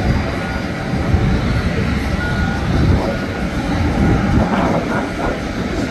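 Jet airliner engines running at low taxi power: a steady, loud, low rumble.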